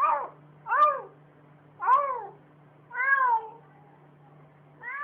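A cat meowing five times, roughly once a second, each meow rising and then falling in pitch.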